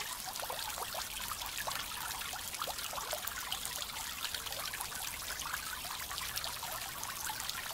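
Small garden pond fountain spraying fine jets of water that fall back and patter steadily onto the pond surface, with many single drops plinking.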